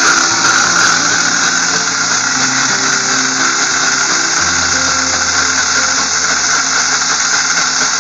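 Electric mixer grinder running steadily with its steel jar, grinding soaked lentils into batter. Music with slowly changing notes plays underneath.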